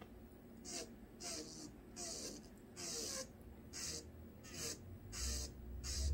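Electric nail drill bit grinding a Polygel nail into a point in short strokes, a hiss with each pass, about eight times. A low hum comes in near the end.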